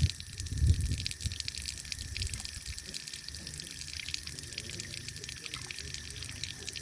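Water trickling and splashing, with a fine, dense patter of drips throughout. A loud low rumble sounds in the first second.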